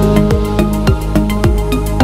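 Electronic background music with a steady, fast beat and held synth notes.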